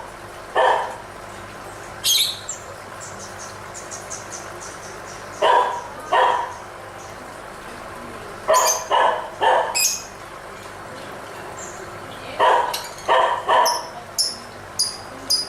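Lovebirds chirping: fast high twittering near the start and again toward the end, broken by louder harsh calls in clusters of two to four.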